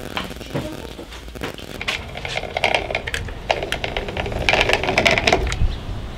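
Hand caulking gun laying a bead of sealant along a window frame: a run of clicks and rattles from the trigger and plunger rod, busiest in the middle of the clip.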